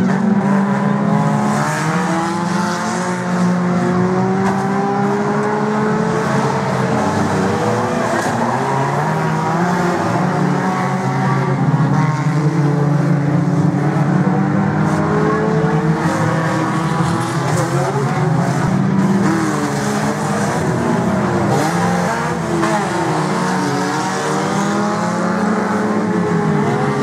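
Several banger-racing cars' engines revving together, their pitches rising and falling over one another as the cars race round an oval, with tyres squealing at times.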